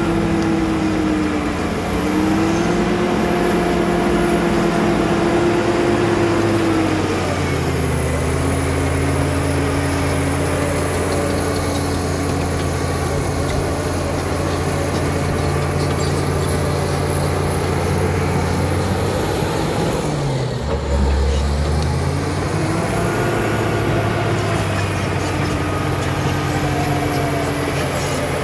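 Caterpillar D7 crawler dozer's diesel engine working under load as the blade pushes soil. Its note drops about a quarter of the way in, then dips and picks back up about three-quarters through, with a thin high whine above it.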